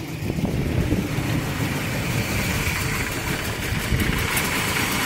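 2000 Chevy Silverado 1500's V6 engine idling steadily with the fuel pump fuse pulled, running only on the gas left in the pressurised fuel line.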